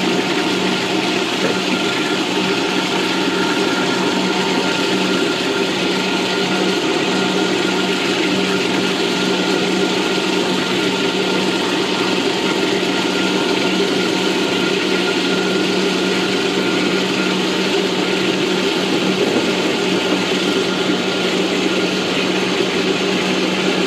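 Motor-driven disc grain mill running steadily with a constant hum, its plates grinding toasted horchata ingredients (rice and cacao) into a coarse meal.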